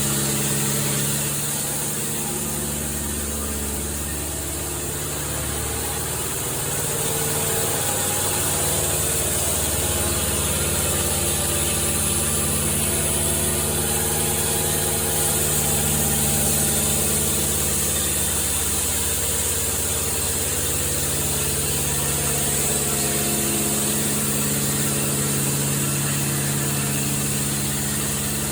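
An engine running steadily, easing off briefly a few seconds in and then settling back to a steady speed.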